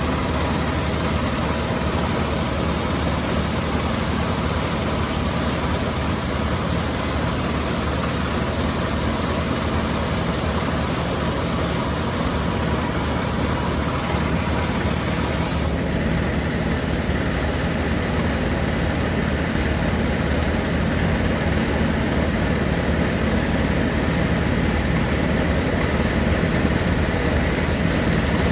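Heavy machinery of a stone crushing plant running steadily with a constant low engine drone and a dense mechanical din; about halfway through the sound turns slightly duller.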